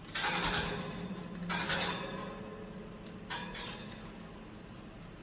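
A small metal piece clinking as a caique parrot knocks and plays with it: three bursts of quick bright clinks, each ringing on briefly before fading.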